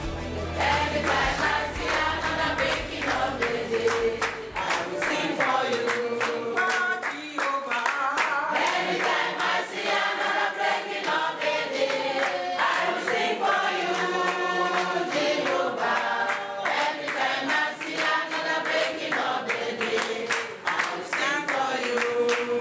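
A crowd of people singing together without instruments, with steady rhythmic hand-clapping.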